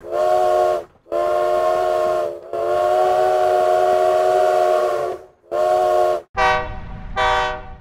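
Steam locomotive whistle sounding a chord in six blasts, the third held for nearly three seconds. The last two blasts are shorter and brighter, with a low rumble beneath them.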